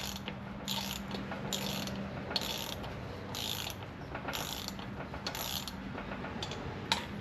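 Hand socket ratchet clicking in repeated strokes, about one a second, running down the rear sprocket screws on a Harley-Davidson Dyna wheel by hand before final torque.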